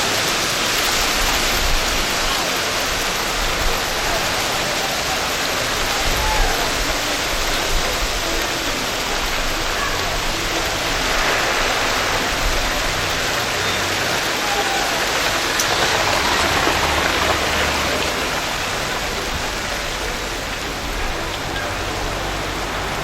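Hail falling heavily and steadily, a dense hiss of stones striking the ground, like a downpour.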